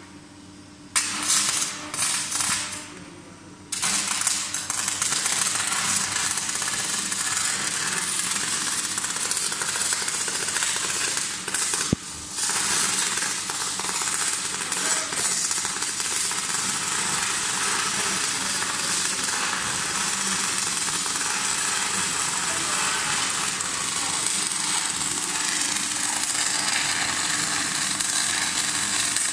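Electric arc welding on a machine axle, a steady crackling and sizzling. It starts in a few short bursts, runs continuously from about four seconds in, and breaks off briefly near the middle.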